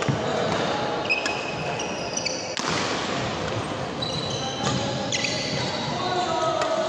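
Badminton rally: several sharp racket strikes on the shuttlecock, the loudest about two and a half seconds in, with short high squeaks of sports shoes on the wooden court floor, ringing in a large hall.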